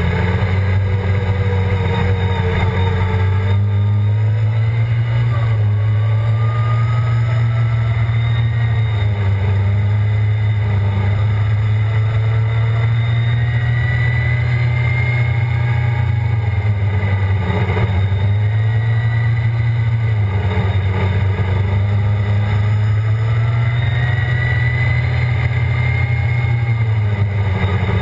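Off-road vehicle engine running hard at speed, its revs dropping and picking back up several times.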